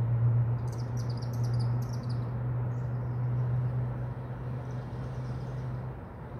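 Birds chirping, with quick runs of high chirps about a second in and fainter ones later, over a steady low hum that stops near the end.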